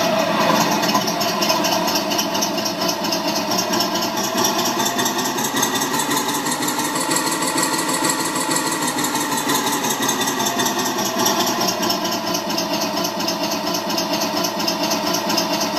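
An RC Tiger I tank's sound card playing a simulated tank engine through its small speaker, running steadily with a gentle rise and fall in engine pitch in the middle.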